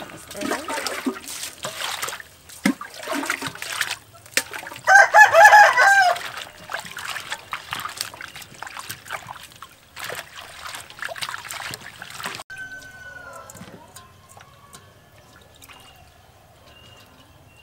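Hands swishing and splashing herbs, chilies and cucumber in water in a stainless-steel bowl, washing them; the splashing gets much quieter for the last few seconds. About five seconds in a rooster crows once, the loudest sound.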